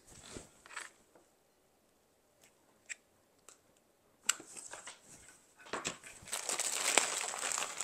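Dry Spanish moss being handled and pulled apart, crackling and rustling. After a quiet stretch and a single sharp tick about four seconds in, the crackling grows dense and is loudest in the last two seconds.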